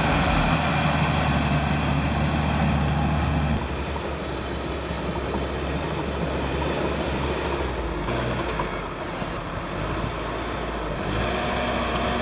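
Heavy machinery engine running steadily with mechanical noise, the sound changing and dropping a little in level about three and a half seconds in.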